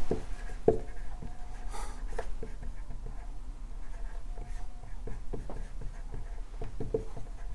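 Dry-erase marker writing words on a whiteboard, in a run of short, irregular strokes.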